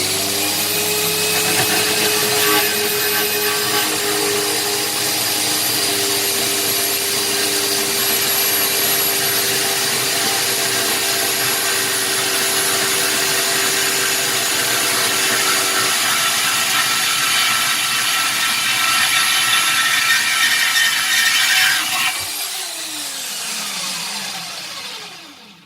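WorkZone portable metal-cutting bandsaw running at speed 4, its blade cutting through 3 mm steel angle iron with a steady whine. About 22 seconds in the trigger is released and the motor winds down with a falling whine until it stops.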